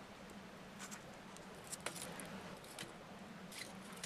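Metal tongs setting hot wood coals onto a wire rack on top of a steel pot oven: scattered light clinks and taps of coal and tongs against metal.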